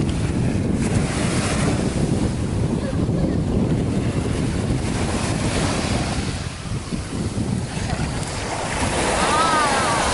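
Wind buffeting the microphone over surf on a beach, a dense low rumble that eases a little about six seconds in.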